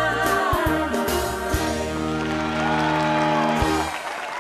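Band music from a live children's song, settling into a long held chord that stops shortly before the end.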